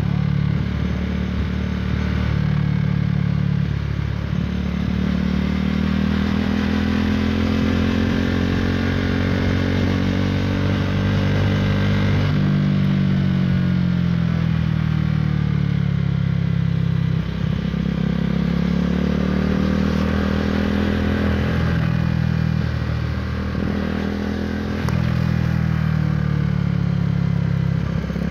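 KTM Duke 390's single-cylinder engine through an Akrapovic Racing Line exhaust, running under way with its pitch rising and falling several times, with brief dips where the throttle eases.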